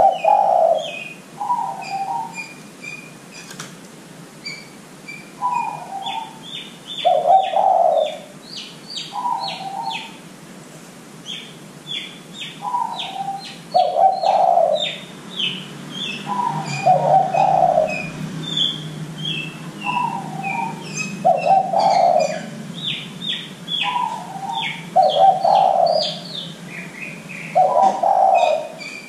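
Spotted dove (derkuku) cooing over and over, a phrase every few seconds, each a short higher note followed by a louder, lower one. Small birds chirp high and busily throughout.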